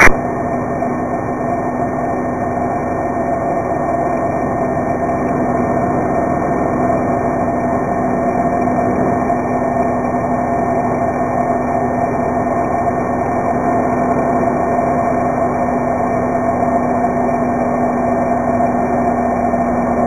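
Supermarine Spitfire's V12 piston engine droning steadily and muffled through two aerobatic loops, its pitch holding constant throughout.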